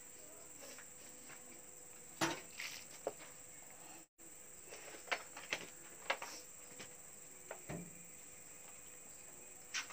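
A few sharp knocks of a hammer tapping an upturned plastic paint bucket to free the cast cement inside, followed by scattered lighter knocks and clicks as the bucket is tilted and worked off the cement.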